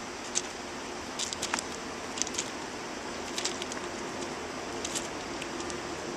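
Small birds chirping in short, high, scattered calls, over a steady outdoor hiss with a faint low hum underneath.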